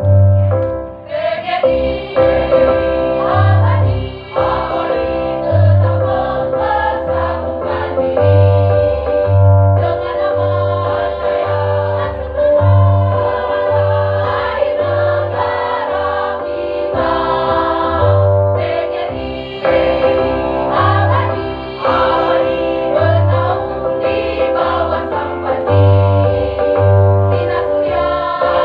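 A choir singing a march in Indonesian to a keyboard accompaniment, with a regular bass beat under the sustained choral chords.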